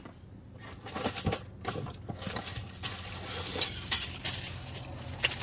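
Light metal clinks and taps, irregular and repeated, as brake pads and caliper hardware are handled during a brake pad change.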